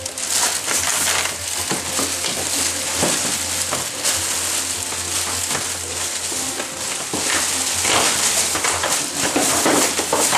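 Thin plastic carrier bags crinkling and rustling continuously as they are handled and filled, with a steady low hum underneath.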